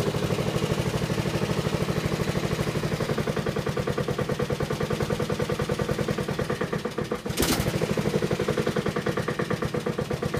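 Honda HRT216 lawn mower's single-cylinder engine running steadily with a fast, even pulse, just after a cold start. About seven seconds in the level briefly dips, then there is a short sharp burst before it runs on.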